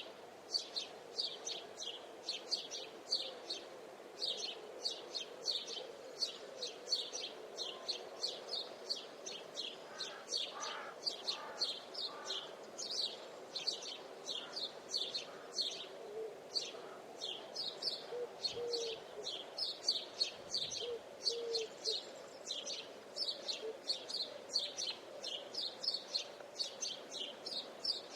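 Songbirds in a forest chorus, chirping in a continuous run of quick, high notes about two or three a second, with a steadier lower layer of birdsong underneath.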